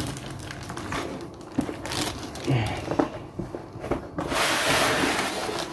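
Cardboard packaging of a boxed audio mixer being opened and handled: scattered knocks, taps and rustles of card and plastic, then a longer rustling scrape lasting about a second and a half near the end as the box is lifted off its contents.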